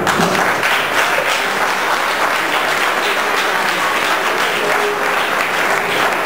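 An audience applauding, a dense and steady clapping.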